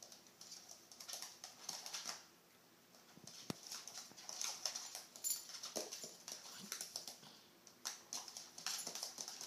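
An American bulldog–shar pei mix and a baby pot-bellied pig at play: irregular scuffling and snuffling with short whimpering sounds, and a single sharp knock about three and a half seconds in.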